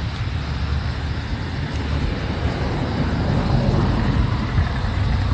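Steady low rumble of road traffic from a nearby highway.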